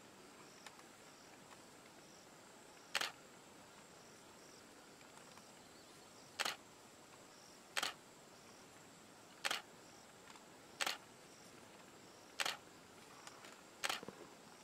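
Camera shutter firing single shots: seven sharp clicks at uneven gaps of one to three and a half seconds, over a faint steady outdoor hiss.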